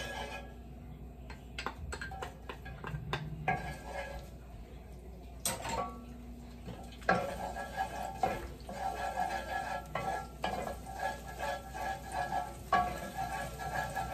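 A spatula stirring, scraping and tapping against a pot, with a run of sharp knocks, while chopped food sizzles in hot oil.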